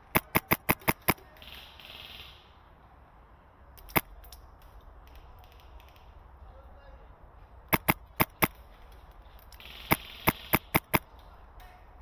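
Wolverine MTW HPA airsoft rifle with a mock suppressor firing in quick bursts of sharp snaps: six rapid shots at the start, a single shot about four seconds in, four shots around the eight-second mark and five more near the end.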